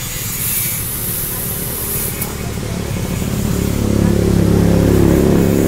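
A vehicle engine running, growing louder from about three seconds in to a peak near the end, then starting to ease off.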